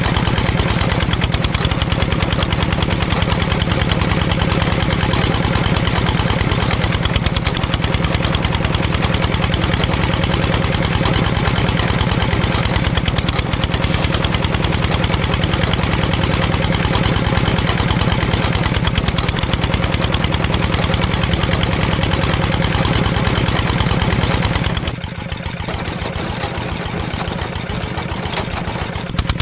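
A small tractor engine running steadily with a fast, even beat. About 25 seconds in it drops to a lower level, and it comes back up near the end.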